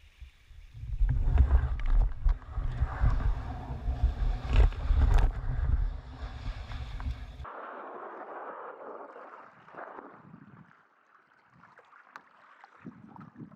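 Wind buffeting the microphone: a heavy, uneven low rumble that cuts off abruptly about seven seconds in, leaving a fainter rushing noise that dies away and picks up again near the end.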